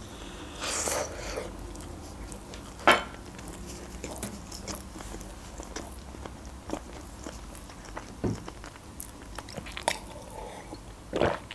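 Close-up biting and chewing of quiche with a crumbly shortcrust pastry crust, with a burst of chewing about a second in and small mouth clicks throughout. Near the end she swallows gulps of juice from a glass.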